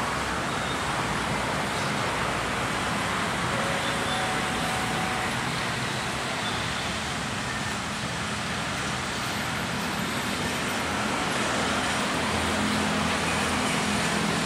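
Steady road traffic noise of motorcycles and cars idling and moving at a railway level crossing. A low hum builds near the end as a JR 205 electric commuter train approaches.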